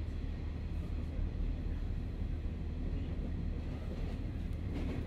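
Running noise inside a KiHa 40 diesel railcar in motion, heard binaurally from the passenger cabin: a steady low rumble.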